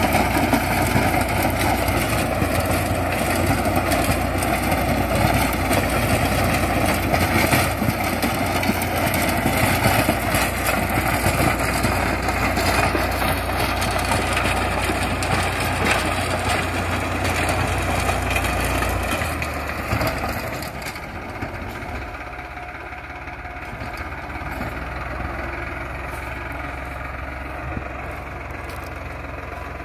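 Tractor's diesel engine running steadily under load, driving a rotavator that churns through dry soil. The sound drops in level about two-thirds of the way through and stays lower.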